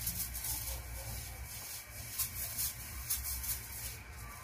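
A hand rubbing flour and other dry ingredients through a stainless-steel mesh sieve: soft, scratchy rubbing in repeated strokes.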